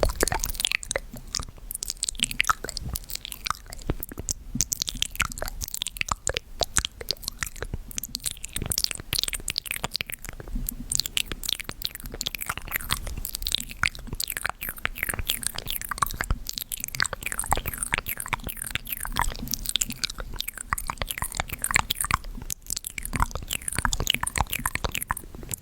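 Close-miked crackling and tapping from a handmade DIY kaleidoscope being handled for ASMR, a dense, irregular run of small sharp clicks.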